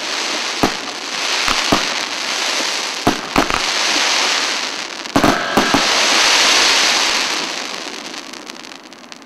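CGF-1340 consumer fireworks battery firing: a few sharp bangs over a dense, high-pitched crackling. The crackling is loudest a few seconds before the end and then fades away as the battery burns out.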